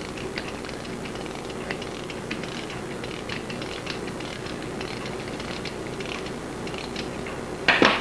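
Small, irregular metallic clicks from a reassembled mechanical clock movement as power is put to its strike-side mainspring, the ratchet click ticking over. A short, louder sound comes near the end.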